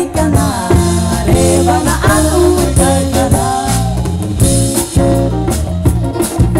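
A live band playing: a woman singing lead over electric guitar, bass guitar and drum kit, with a steady beat.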